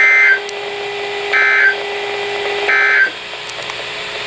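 Weather radio SAME end-of-message data bursts: three short, identical two-tone digital screeches about 1.3 seconds apart, the coded signal that the alert broadcast is over. A steady hum underneath cuts off just after the third burst.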